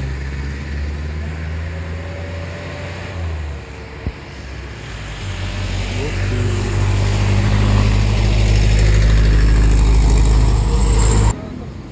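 A bus's diesel engine rumbling as it approaches and passes close, the deep rumble growing steadily louder, then cutting off abruptly near the end. A single sharp knock about four seconds in.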